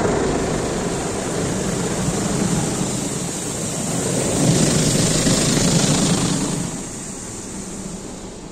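Automatic car wash heard from inside the car: rotating wash brushes and water spray beating on the body and glass, a steady rush of noise. It grows louder as a brush sweeps across the windshield, then dies down near the end.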